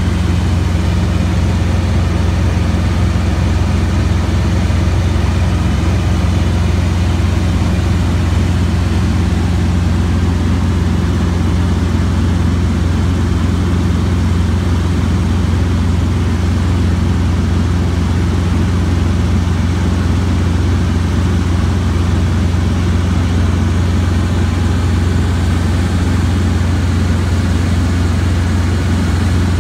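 Cabin noise of a Robinson R22 helicopter in cruise flight: the piston engine and rotor make a loud, steady, deep drone that holds unchanged throughout.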